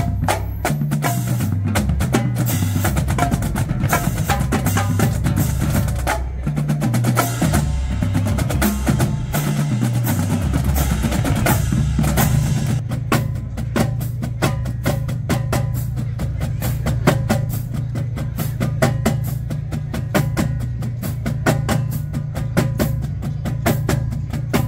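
Marching band drumline of snare drums, tenor drums, bass drums and crash cymbals playing a cadence. Bass drum notes step up and down in pitch under the snares, and about halfway through the playing turns into a faster, denser run of sharp stick strokes.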